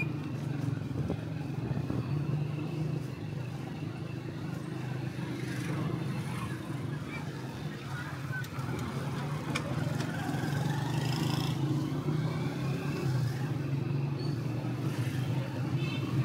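Motorcycle engine running steadily while riding slowly. Other motorbikes pass by in the narrow street, and their engine notes rise and fall in the middle of the stretch.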